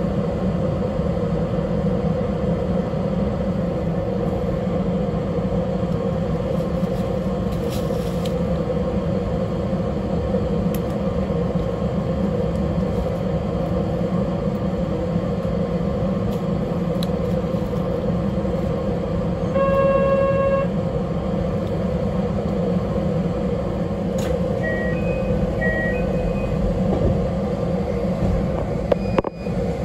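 Steady hum and rumble inside a stationary narrow-gauge railcar. About two-thirds of the way through a horn tone sounds for about a second, followed by a few short high electronic pips.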